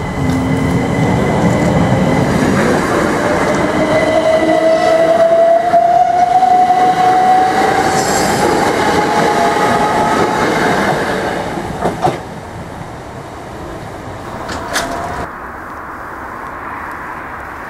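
Southern electric multiple unit pulling away and passing close by. Its traction motors give a steadily rising whine as it gathers speed, over the rumble of its wheels on the rails, with a couple of sharp clacks near the end of the pass. The sound then drops suddenly to a quieter steady rumble from a train further off.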